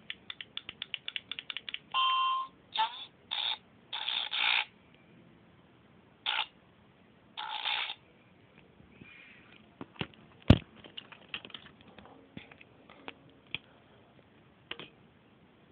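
Circuit-bent talking alarm clock glitching through its small speaker: a fast run of clicks, then short bursts of harsh buzzing noise, one carrying a steady bleep, followed by scattered clicks and one sharp click about ten seconds in.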